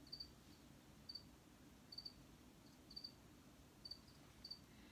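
A cricket chirping faintly and steadily, one short high chirp about every second.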